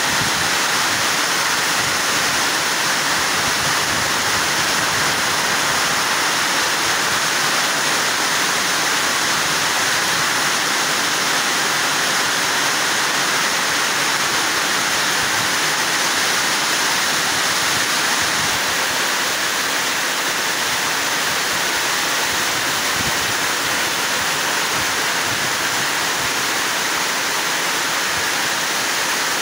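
Heavy monsoon rain pouring down steadily: a loud, dense, even hiss that does not let up.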